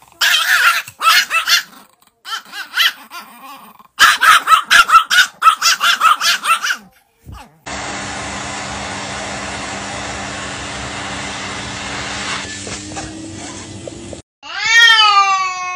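Pomeranians barking and yipping in quick runs, then a vacuum cleaner running steadily for about six seconds and cutting off, followed by a cat's loud, long yowl that drops in pitch and then holds.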